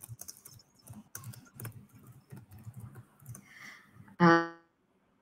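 Computer keyboard typing: quick, irregular keystroke clicks. A brief hummed voice sound comes about four seconds in.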